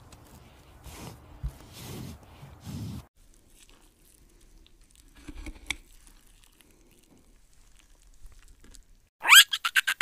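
A greater one-horned rhinoceros chewing and tearing a leafy branch: a few soft crunches in the first three seconds, then faint rustling. Near the end comes a loud run of quick squeals from a young Barbary macaque, each rising in pitch, about seven a second.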